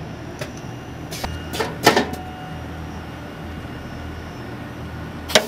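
Pneumatic seedling grafting machine working: short sharp clacks with bursts of air as its clamps and cutter actuate, the loudest about two seconds in and another near the end, over a steady low hum.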